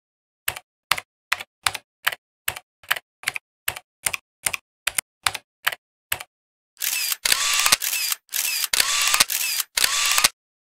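Typing sound effect: about fifteen sharp keystroke clicks, one per letter, around two and a half a second. It is followed by about three seconds of longer whirring mechanical bursts, each with a short rising whine.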